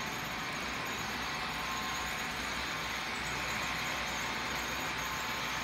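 Electric model trains running around the layout's track: a steady whir of small motors and wheels rolling on the rails, over a faint low hum.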